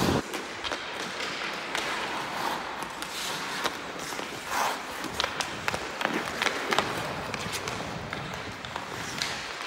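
Ice skate blades scraping and carving across rink ice, with scattered sharp taps of a hockey stick on the puck and ice during puck handling.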